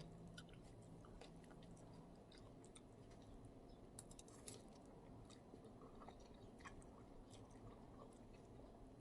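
Faint chewing of a spicy Thai instant-noodle salad with shrimp, squid and vegetables, with small scattered mouth clicks.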